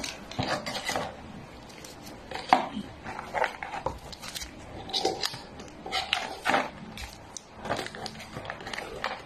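Pedigree wet dog-food pouches crinkling and tapping as they are handled and packed back into their cardboard box: scattered short rustles and light knocks.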